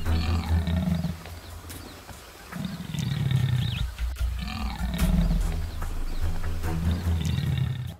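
Big-cat roars, four drawn-out ones about two seconds apart, over background music.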